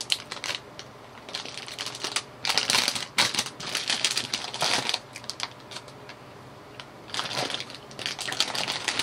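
Plastic snack wrapper crinkling in the hands, in several bursts about a second long with short pauses between.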